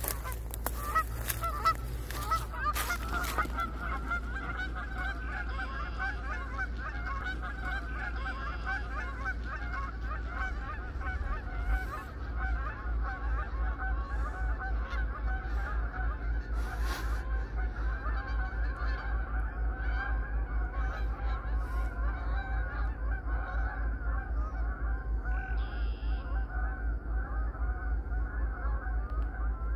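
A large flock of Canada geese honking continuously, many calls overlapping, as the spooked birds take flight. A low rumble runs underneath and turns into a steady fast pulsing about twelve seconds in.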